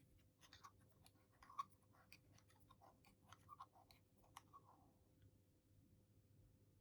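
Faint, irregular clicks and scraping of utensils working through a bowl of sticky natto pasta, stopping about five seconds in.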